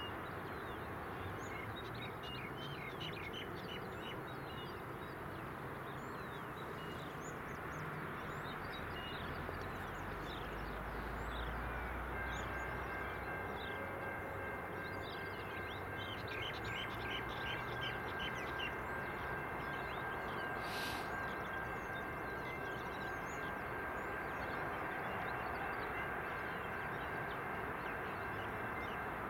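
Distant diesel trains idling at a station, a steady low running noise, with small birds chirping over it; from about twelve seconds in a steady high-pitched whine joins and holds.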